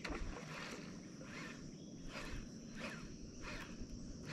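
Faint insect calls: a steady high hum with a soft, rhythmic chirp repeating about every 0.7 seconds.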